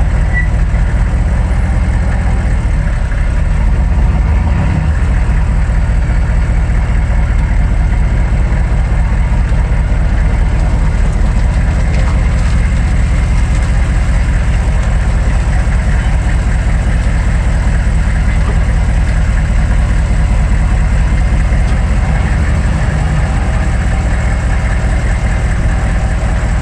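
The 6.5-litre turbo diesel V8 of a 1999 GMC 3500 pickup running steadily at low speed, heard close-up from beneath the truck.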